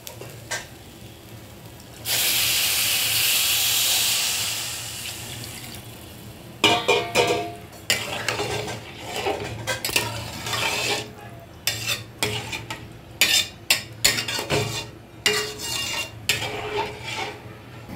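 Cold water poured into a hot aluminium pot of fried, spiced rice, hissing steadily for a few seconds about two seconds in. After that a spatula stirs the rice in the water, scraping and knocking against the pot in short clicks.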